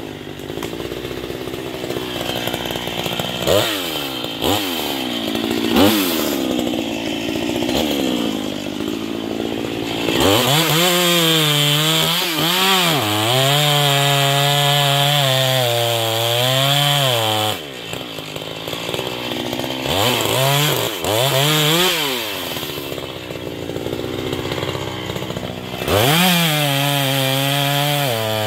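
Husqvarna 440 two-stroke chainsaw idling with several quick throttle blips, then held at full throttle for about seven seconds with its pitch wavering, dropping back to idle. It is blipped a few more times and revs up to full again near the end as the chain goes into the log.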